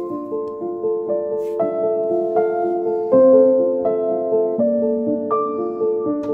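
Background instrumental music: a steady run of notes that changes about every three-quarters of a second.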